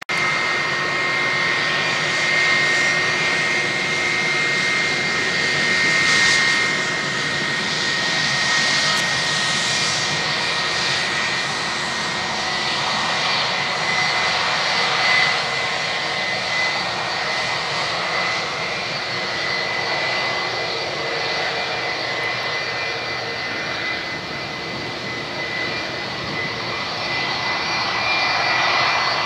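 The two IAE V2527 turbofan engines of an Airbus A320-200 at taxi power: a steady high whine over a broad rushing hiss, the level rising and falling a little as the aircraft taxis past.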